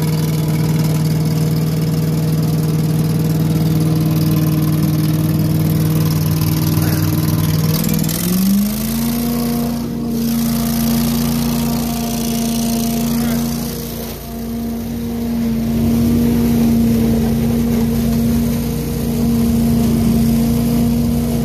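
Billy Goat debris vacuum loader's 18 hp V-twin engine running steadily soon after a cold start. About eight seconds in it revs up over a second to a higher, steady running speed for vacuuming leaves.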